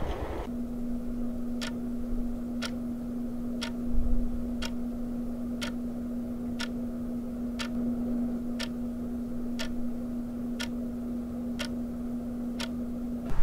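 A clock ticking steadily about once a second over a steady low hum.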